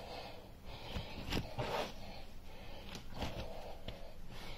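Hands kneading a large ball of bread dough on a countertop: soft rubbing and pressing swishes every second or two, with a few light knocks.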